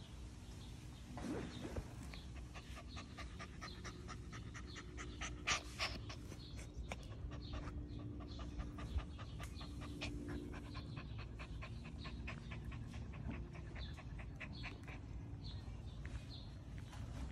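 Miniature Schnauzer puppy panting rapidly, about four breaths a second, with a couple of louder breaths about five to six seconds in.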